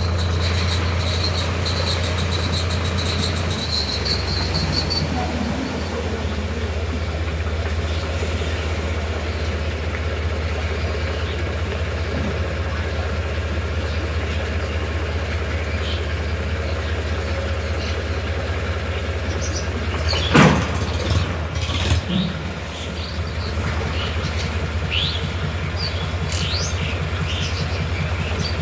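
Tractor diesel engine running steadily while its hydraulic tipping trolley is tipped to dump soil and then lowered. A high thin whine stops about four seconds in, and a sharp knock comes a little after twenty seconds, with a smaller one just after.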